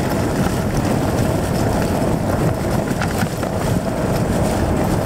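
A sled on wheels rolling fast over a dirt trail behind a running sled dog team: a steady rumble with small scattered clicks, and wind on the microphone.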